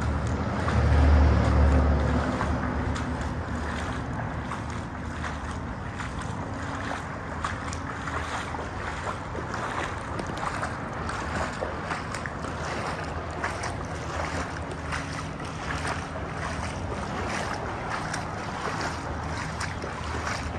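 Steady rushing noise, with a heavy low rumble swelling about a second in and fading over the next couple of seconds.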